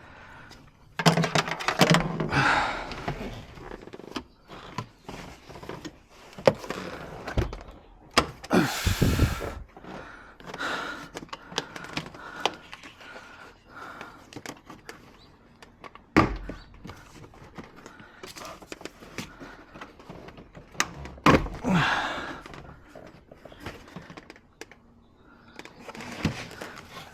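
Plastic car interior trim being handled and pried loose: scattered clicks and thunks between stretches of scraping and rustling of panels.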